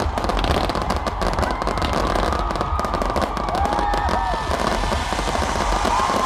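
Fireworks crackling in a dense run of rapid pops, thickest in the first few seconds, with crowd voices calling out over them.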